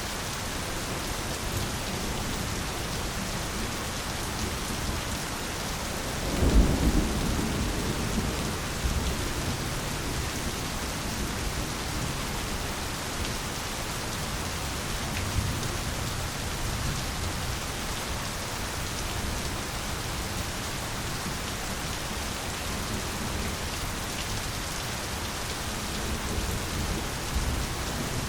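Steady rain falling, with a rumble of thunder about six and a half seconds in and fainter low rumbles later on.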